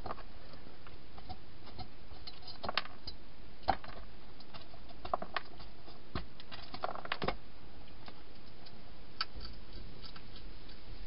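A wild hedgehog at a clear plastic feeding box making irregular clicks and taps, singly and in small clusters, over a steady faint hiss.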